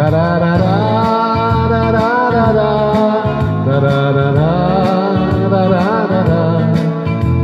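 Electronic keyboard playing an instrumental passage between verses of a slow song: a sustained melody line with vibrato over steady bass accompaniment notes.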